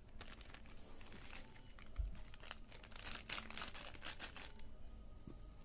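Small clear plastic packaging bag crinkling as it is handled and shaken open. The crackles are densest about three seconds in, and there is a soft thump about two seconds in.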